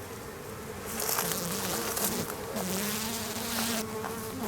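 Honeybees buzzing close to the microphone, a wavering drone that rises in pitch and level as they fly near, with a hiss over it from about a second in. The bees are defensive, coming at the beekeeper during the hive inspection.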